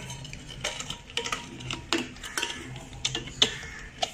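A steel bowl being handled on a stone counter while a silicone stretch lid is pulled over it: a string of light knocks and clinks, the sharpest one a little before the end.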